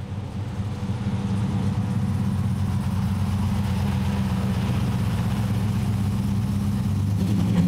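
V8 engine idling steadily, a low even running sound that builds in the first second and then holds.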